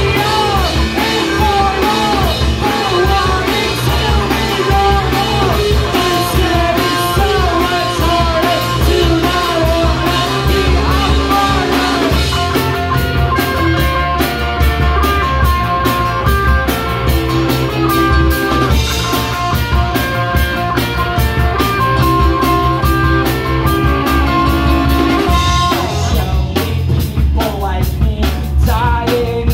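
A live rock band plays: singing over electric guitar, keyboard and a drum kit. About twelve seconds in the voice drops out for an instrumental stretch of long held notes, and the singing comes back near the end.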